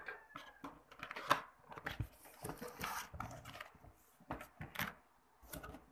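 Cardboard box being opened by hand: its flaps pulled apart and the carton handled, a run of irregular scrapes, rustles and small knocks.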